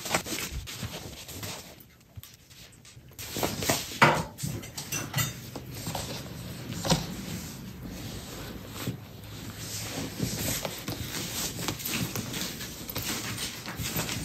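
Clothes and packing pouches rustling and soft knocks as they are handled and pressed down in an open hard-shell suitcase, with a dryer sheet laid on top.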